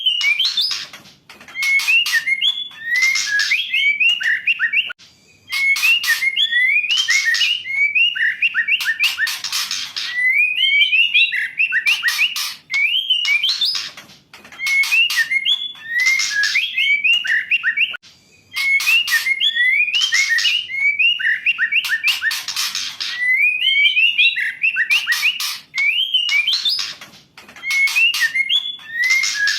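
Female white-rumped shama calling, a lure song for a male. Quick whistled notes mix with harsh rasping clicks, and the same phrase repeats about every four seconds with short pauses between.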